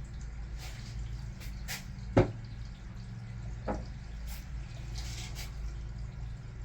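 A sharp knock about two seconds in and a softer one a little later over a steady low hum, as parts or tools are handled on the engine being assembled.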